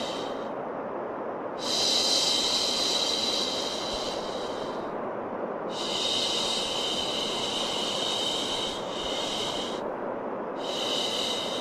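Long, repeated 'shhh' shushes, each lasting about three to four seconds with about a second's pause between them, over a steady bed of white noise: a sound meant to soothe a crying baby.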